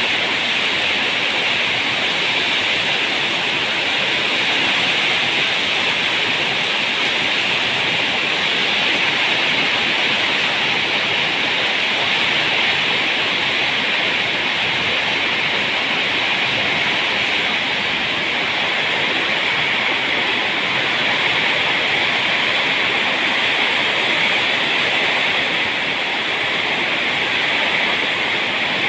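Heavy downpour: a steady, unbroken hiss of torrential rain.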